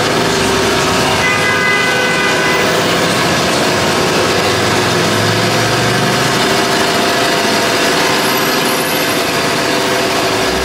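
Loud, steady city street traffic: vehicle engines running and tyres hissing on a wet road.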